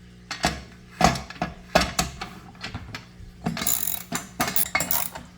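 Metal clicks and knocks of a screw being driven into a bike rack's rail during assembly, irregular at first, then a quicker run of clicks about three and a half seconds in.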